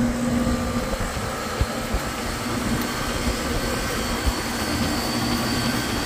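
Refrigeration condensing unit running steadily, its compressor and condenser fan making an even mechanical hum with a faint high whine and a few soft low knocks. The unit is running on, rather than cutting out, because its low-pressure switch cut-in has been set to zero.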